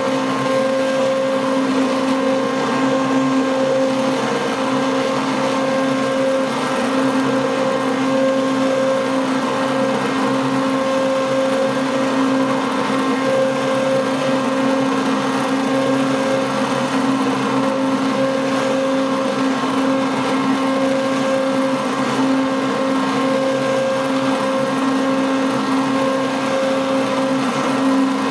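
Handheld stick blender running steadily with a constant motor hum, its head submerged in cream soap batter being blended toward trace.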